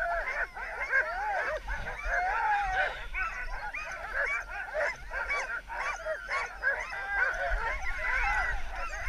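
A chorus of many sled dogs in harness barking and yelping all at once, a dense, unbroken clamour of overlapping high yips. It is the excited noise of teams held back by their handlers at a race start.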